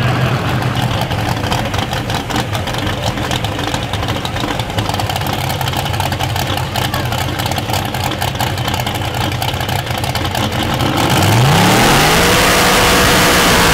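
Lifted mud truck's engine running low, then about eleven seconds in it revs up sharply and holds at high revs as the tires spin in a burnout.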